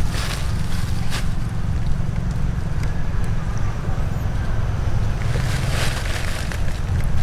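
Wind buffeting the camera microphone, a steady low rumble, with a few brief crackles about a second in and again past the middle.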